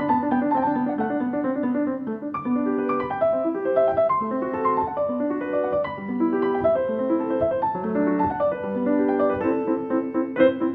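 Piano music: a steady flow of quick notes moving up and down.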